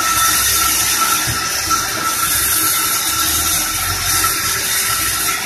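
Log bandsaw mill running: a steady high hiss with a constant thin whine from the spinning blade and drive, over a faint low rumble.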